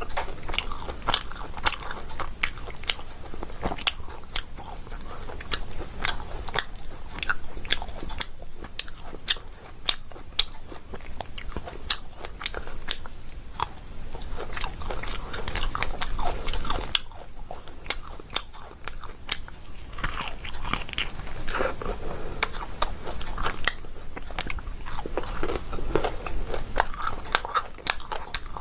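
A person chewing and biting pomfret fish with rice close to the microphone, with many irregular sharp clicks from the mouth throughout.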